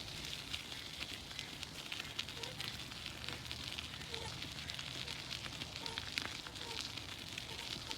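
Steady patter of rain, with many small drops ticking.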